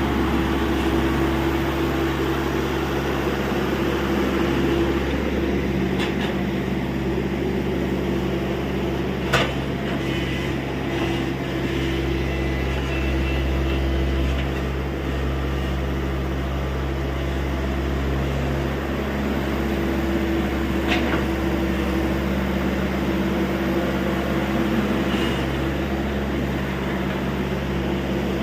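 TATA Hitachi EX70 excavator's diesel engine running steadily with a constant hum, with a few short knocks, the loudest about nine seconds in.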